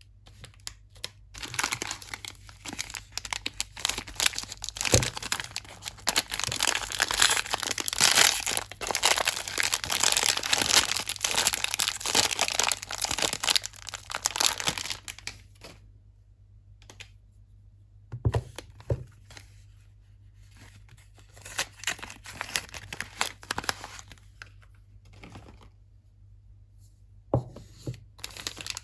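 Soap packaging being torn open and crinkled off the bars: a long stretch of dense tearing and crackling that thins out to sparser rustling about halfway through, with a few soft knocks.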